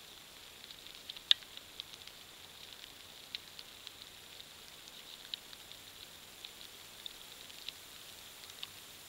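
Quiet outdoor ambience: a steady faint hiss dotted with irregular light ticks and taps, one sharper tick about a second in.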